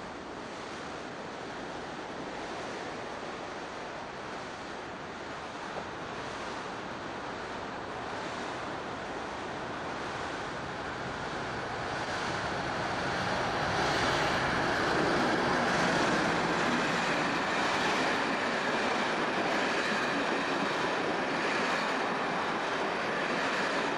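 Waves breaking against the sea wall, then a British Rail Class 50 diesel locomotive hauling a train of coaches approaches and passes close by. The engine and the clatter of wheels over the rail joints grow louder from about halfway through and stay loud to the end.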